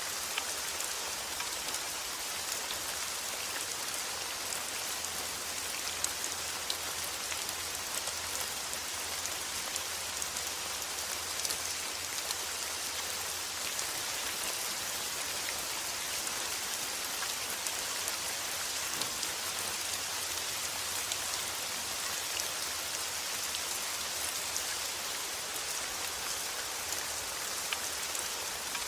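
Steady heavy rain falling, an even hiss with many sharp individual drop ticks.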